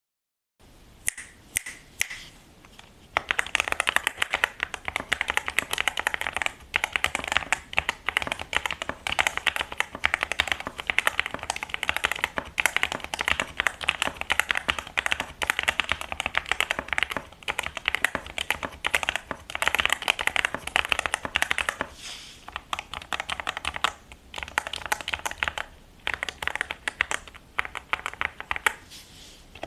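Stock Yunzii AL66 mechanical keyboard with Yunzii Milk linear switches and PBT keycaps being typed on: a few single key presses at first, then fast continuous typing with brief pauses.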